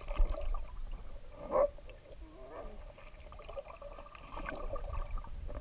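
Muffled underwater sound of a Doberman paddling and diving in a swimming pool: water churning and bubbling, with a few louder surges.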